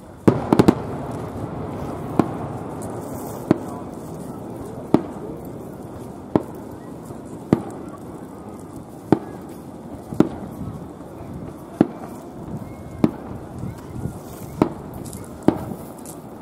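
Aerial firework shells bursting, one sharp bang about every second and a half, with a quick triple bang about half a second in. Each bang trails off in a short echo over the low chatter of a crowd.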